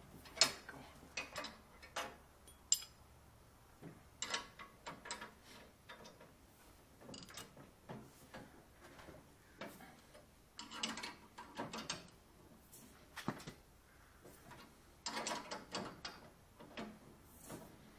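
SK Wayne 40170 hand ratchet clicking in short bursts of rapid clicks, with a few single sharp metallic clicks in between, as the snugged-up bracket bolts are run down and tightened.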